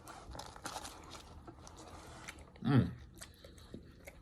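Close-miked chewing and biting into fried fast food, with small wet clicks and crunches throughout. About three quarters of the way in there is one short vocal sound falling in pitch, the loudest moment.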